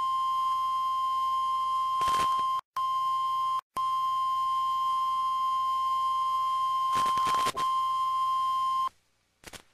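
NOAA Weather Radio warning alarm tone, a steady 1050 Hz tone sent to set off weather-radio receivers before a warning is read. It drops out twice briefly and is crossed by two short bursts of static, then cuts off near the end.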